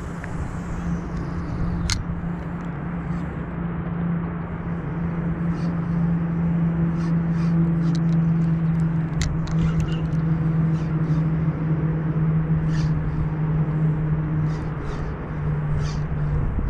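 A steady low mechanical hum that grows louder over the first several seconds and drops slightly in pitch near the end, with a sharp click about two seconds in and scattered short high chirps above it.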